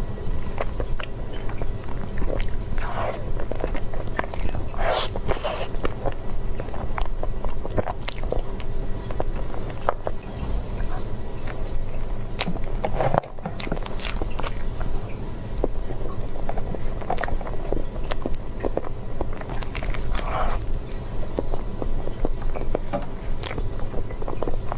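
Someone biting and chewing food close to the microphone: many small clicks and mouth sounds over a steady low hum.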